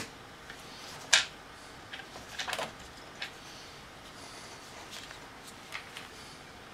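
Scattered light clicks and knocks of small hand tools and hardware being handled on a tabletop, the loudest about a second in and a small cluster around two and a half seconds, with fainter taps near the end.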